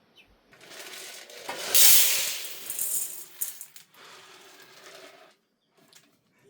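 Rattling of many small hard objects. It builds about half a second in, is loudest about two seconds in, and tails off in smaller rattles before stopping about five seconds in.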